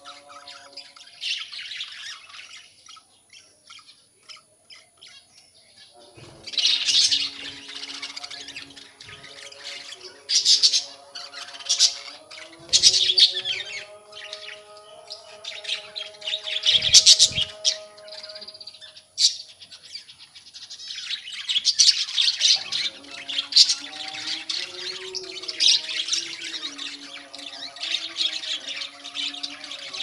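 A flock of budgerigars chattering, chirping and squawking, coming in loud bursts and growing almost continuous in the last third.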